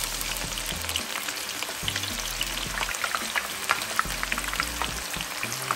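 Onions sizzling and crackling in hot vegetable oil in a pot, a steady frying hiss dotted with many small pops.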